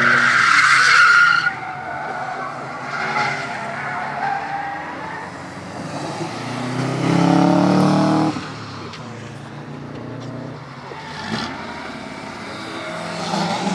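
Cars drifting on a track: tyres screech loudly for the first second and a half over running engines. About seven seconds in, a car's engine grows louder for a second or so as it passes close by.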